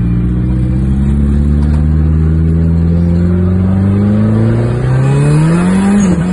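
Daihatsu Charade GTti's turbocharged 1.0-litre three-cylinder engine pulling under acceleration, heard from inside the cabin. Its pitch climbs steadily, rises faster near the end, dips briefly, then holds.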